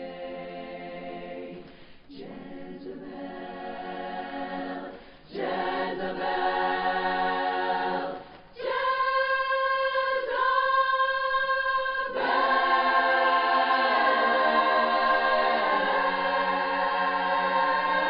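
Women's a cappella chorus singing in close barbershop harmony. Short phrases are broken by brief breaths about 2, 5 and 8 seconds in, then the voices hold long sustained chords that grow louder.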